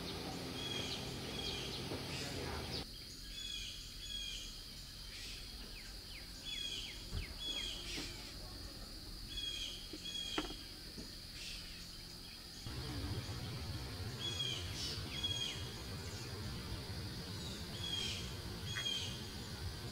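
Outdoor ambience of a bird singing short two-note chirps, repeated every second or two, over a steady high-pitched hum and low background noise.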